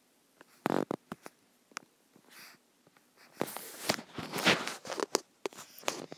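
Stylus tapping and scraping on a tablet's glass screen while drawing: a few sharp taps about a second in, a longer scratchy run of strokes through the middle, and a few more taps near the end.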